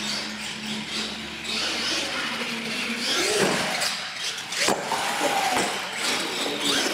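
Radio-controlled monster trucks' electric motors whining as they rev up and down, with a couple of sharp knocks about two thirds of the way in as a truck lands off a jump on the hard floor.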